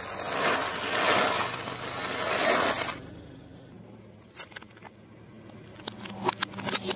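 A car tyre slowly rolling over foil trays of crumbly food, a long crinkling, crunching scrape lasting about three seconds. Near the end comes a run of sharp crackles as the tyre presses down on a soft yellow toy chicken.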